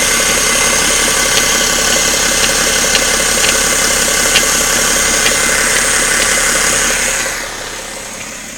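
BMW 530xd three-litre straight-six turbodiesel idling with a sharp knock repeating roughly twice a second, the engine knocking noise the owner is chasing. The sound drops noticeably quieter near the end.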